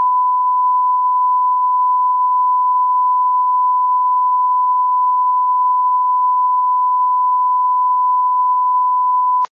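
Broadcast line-up test tone played with SMPTE colour bars: one steady, unbroken beep at a single pitch that cuts off abruptly near the end.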